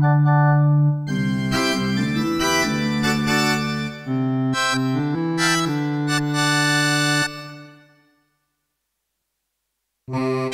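Yamaha PSR-E323 portable keyboard playing one of its preset voices, an organ- or electric-piano-like sound: a held chord, then a busier passage of notes that stops about seven seconds in and fades away. After about two seconds of silence the next preset voice starts near the end.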